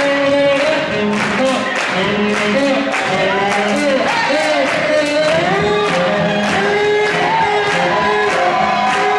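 Swing jazz with singing over a steady beat.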